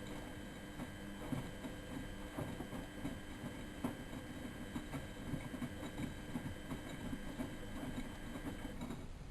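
Miele Novotronic W914 washing machine's motor turning the drum during a hot wash, a steady hum with irregular soft knocks of the tumbling load. The motor stops shortly before the end.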